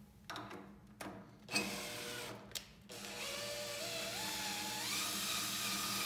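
Cordless drill driving the chain-and-sprocket drive that raises and lowers a planer/jointer bed. After a few short knocks, the drill motor starts about three seconds in with a whine that climbs in pitch in steps, then runs steadily.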